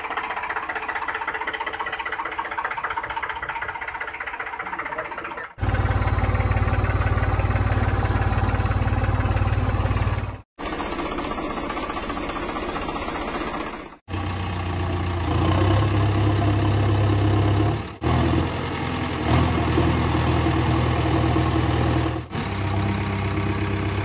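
Tractor engine sound running steadily in several short stretches, each cut off abruptly. The stretches from about six to ten seconds in, and again after fourteen seconds, are deeper and louder.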